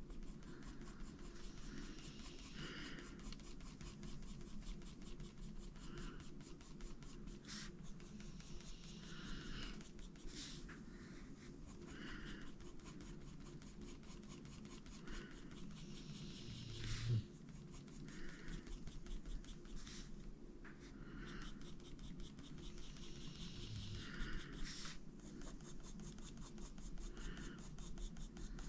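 Faber-Castell Polychromos coloured pencil scratching faintly on paper in short, repeated strokes. A single soft knock a little past halfway through.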